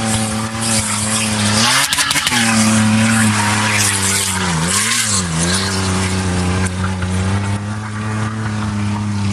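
A motor vehicle's engine running hard at a steady pitch, dipping briefly a few times, under a heavy rushing noise of tyres and wind.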